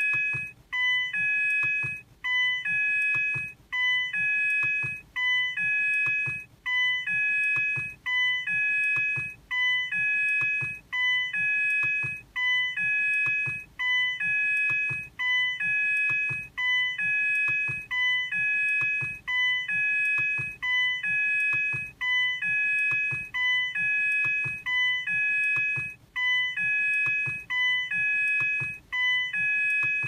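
Ford key-in-ignition warning chime repeating steadily: a bright multi-note ding about every second and a half, the reminder that the key is still in the ignition.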